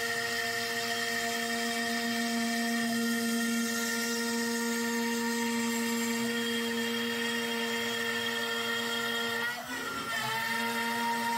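CNC router's trim-router spindle running at speed dial 3 (about 12,000 RPM), milling MDF, with a steady high whine. Near the end the pitch sags briefly as the bit steps down into the next depth pass, then the whine recovers.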